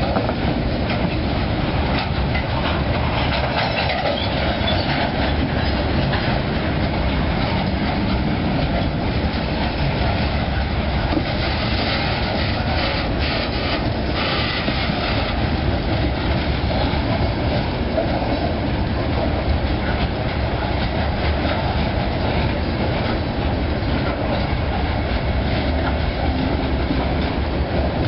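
Freight train of open-top hopper cars rolling past: a steady rumble of steel wheels on rail with clickety-clack as the trucks cross the rail joints. For a few seconds midway a higher-pitched scraping rises over the rumble.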